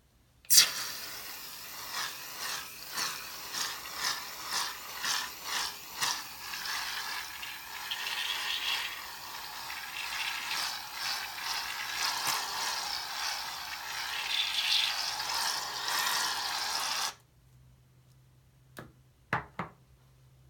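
Aerosol can of shaving cream spraying foam onto a wet sponge: a hissing, sputtering spray that pulses about twice a second at first, then runs on steadily and cuts off suddenly. A few short clicks follow near the end.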